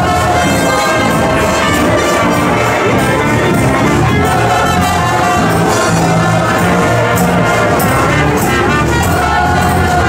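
Marching street band playing loudly on the move, led by trumpets and trombones over steady percussion.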